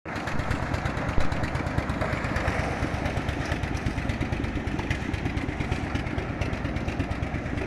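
Engine running steadily with a fast, even pulse. There is a single sharp knock about a second in.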